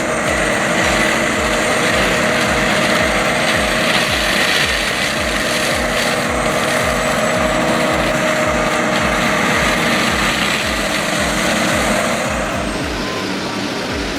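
A heavy land-clearing machine's engine running hard, a steady drone with an even low throb about three times a second and a rough hiss over it. The hiss drops away about twelve and a half seconds in.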